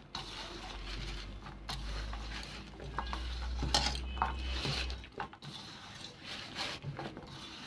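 Bare hand tossing and squeezing okra strips coated in gram flour and spices in a stainless steel bowl: irregular scraping and rustling against the steel, with light clinks on the metal.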